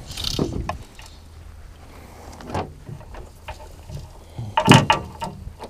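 Scattered clicks and knocks of fishing gear being handled in a boat, with a brief louder squeak near the end.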